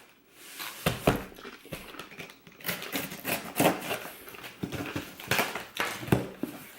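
A utility blade cutting packing tape on a cardboard shipping box, with irregular scraping, crackling and sharp knocks as the tape and cardboard are worked open.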